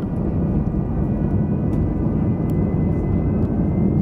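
Jet airliner engines heard inside the passenger cabin while taxiing: a steady low rumble with a thin, steady high whine above it.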